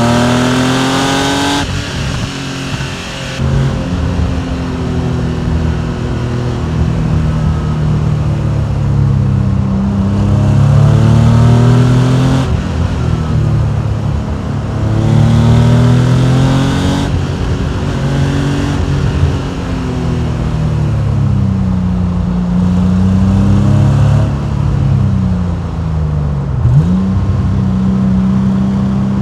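Porsche 993 Carrera's air-cooled, naturally aspirated flat-six pulling hard through the gears on a manual six-speed. The engine note climbs under acceleration and drops sharply at each upshift, about a second and a half in and again around twelve seconds, with a brief dip and quick recovery near the end.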